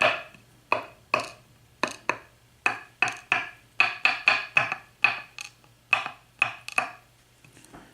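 A quick, uneven run of sharp metallic taps and clinks, about two to three a second, as the disassembled Schlage lock's plug and small brass pins are handled and knocked out onto a hard surface. The taps stop about seven seconds in.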